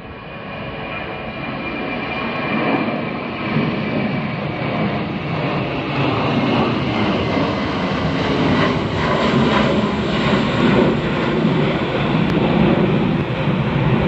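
Jet airliner flying low overhead: its engine noise builds over the first few seconds and then holds loud and steady. A high whine slowly falls in pitch during the first few seconds.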